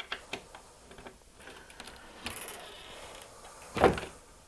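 Small metal clicks and scraping from a cabinet door and its tubular cam lock being worked, then one loud thump nearly four seconds in, typical of the door swinging shut against the cabinet.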